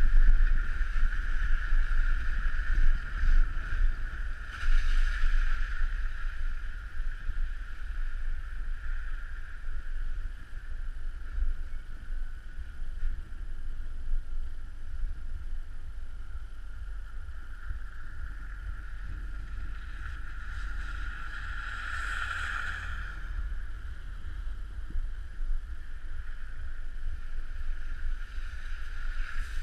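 Car driving on a snow-packed road, heard as a continuous low rumble of road and wind noise with a steady mid-pitched hum. Two brief louder hissing swells come about five seconds in and again near the end.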